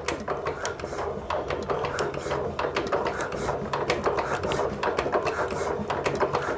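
D24 single-cylinder diesel engine turned over slowly by hand, with a steady run of fast mechanical clicks and rattles from its gears and high-pressure injection pump. The engine is not firing: it is being cranked to push fuel out of the pump's open delivery pipe and bleed it before the injector is fitted.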